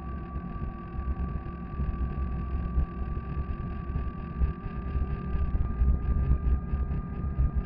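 250 W, 48 V electric fatbike motor whining at a steady pitch while cruising, the pitch shifting slightly about five and a half seconds in. Under it runs a constant low rumble of wind on the microphone and fat tyres rolling over cracked asphalt.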